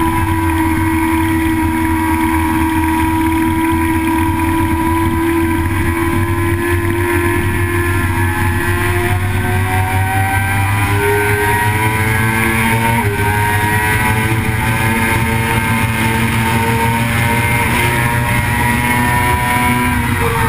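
Vehicle engine running hard at speed: its pitch sags slowly, then climbs under acceleration, drops sharply once about two-thirds of the way in as it shifts up a gear, climbs again, and falls away near the end as the throttle comes off.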